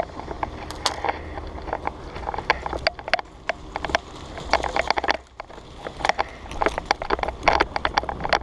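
Irregular sharp clicks and knocks, some bunched in quick runs, over a steady low hum.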